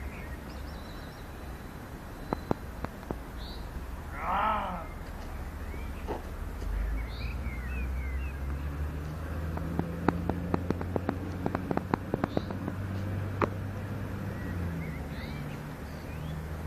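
One harsh crow-like caw about four and a half seconds in, with faint small-bird chirps around it. In the second half a low hum runs along under a run of sharp clicks.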